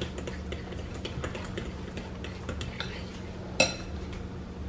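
Metal fork beating waffle batter in a glass bowl: a steady run of small clicks and scrapes, with one louder ringing clink of the fork against the glass about three and a half seconds in.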